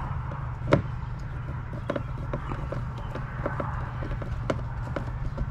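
Hardware being handled against a plastic kayak hull: one sharp knock about three-quarters of a second in, then lighter, scattered clicks and taps, over a steady low hum.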